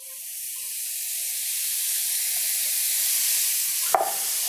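Finely chopped cremini mushrooms sizzling as they are tipped into a hot cast-iron skillet. The hiss starts at once and grows louder over the first second, then holds steady. A short knock comes near the end.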